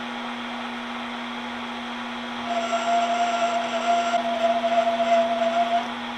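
Metal lathe running with a steady hum while a threading tool takes a light pass along a stainless steel shaft. About two and a half seconds in, a steady high-pitched squeal of tool chatter starts and lasts about three seconds; a spindle speed too high for the cut causes it, and slowing the lathe cures it.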